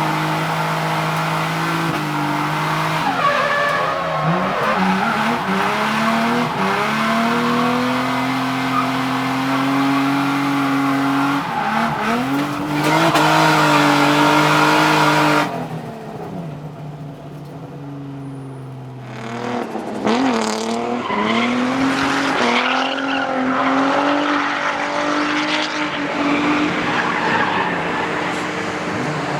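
Twin-turbo Nissan 350Z drifting: the engine revs up and down repeatedly while the tyres squeal. The loudest stretch comes about twelve seconds in. A few seconds later it drops suddenly to a quieter, steadier engine sound, then the revving picks up again near twenty seconds.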